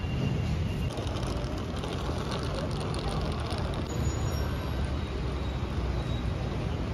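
Steady city traffic rumble from a nearby street, with faint voices.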